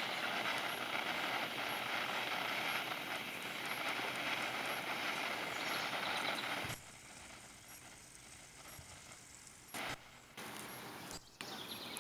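Car-shaped firework fountain burning with a steady hiss, which cuts off abruptly about seven seconds in.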